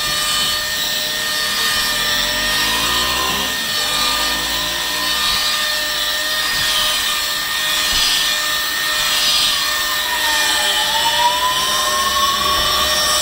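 Electric car polisher running with a foam pad on painted bodywork: a steady motor whine over a hiss, its pitch dipping about ten seconds in and climbing back.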